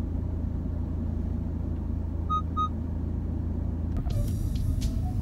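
Steady low rumble of a car's engine and road noise heard inside the cabin, with two short electronic chime beeps from the car a little past two seconds in. About four seconds in it gives way to a rougher driving rumble with a high hiss and light ticks.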